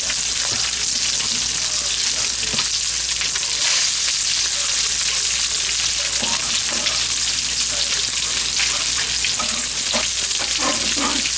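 Bacon sizzling as it fries in oil in a pan: a steady, dense high hiss, with a few short clicks now and then.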